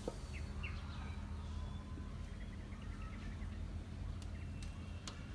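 Outdoor rural ambience: scattered short bird chirps over a steady low rumble, with a few light clicks.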